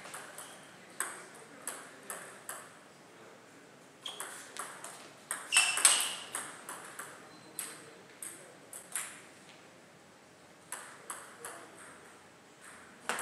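Table tennis ball clicking off the paddles and bouncing on the table in quick runs of sharp ticks during rallies, with short pauses between points. The loudest hits come about six seconds in, together with a brief high squeak.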